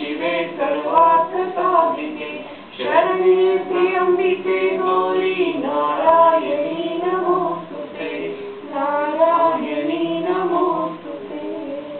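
A small group of voices singing a Sanskrit devotional verse together, the closing mangala verses of a Hindu arati; the singing ends about eleven seconds in.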